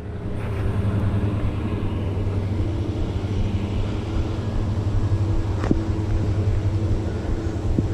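Steady low engine and road rumble of a car being driven, with one sharp click about six seconds in.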